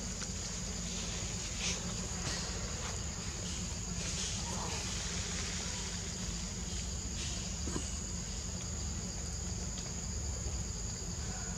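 Steady high-pitched chirring of forest insects over a low steady hum, with a few faint soft rustles and clicks.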